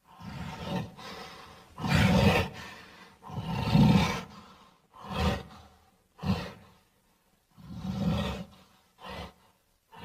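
A run of creature roar and growl sound effects for a caveman-like vampire character: about eight separate roars, the longest and loudest about two and four seconds in, then shorter, clipped ones.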